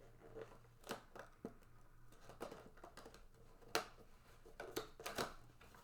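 Cardboard and plastic packaging of a trading-card mega box being handled and opened: scattered crinkles, taps and clicks, the sharpest about four seconds in.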